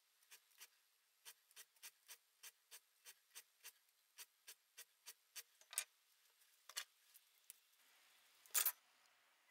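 Hand file scraping in short, quick strokes across the tip of a dull twist drill bit to sharpen its cutting edge, about three strokes a second. The strokes then come further apart and louder, with the loudest scrape near the end.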